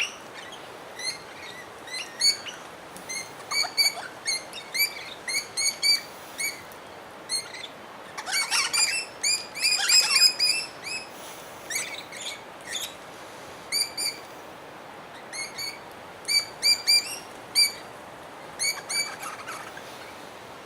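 Birds chirping, short high notes repeated in quick runs, busiest about halfway through.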